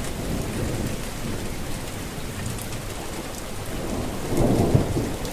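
Steady rain falling, with scattered drips, and a low rumble of thunder swelling about four seconds in.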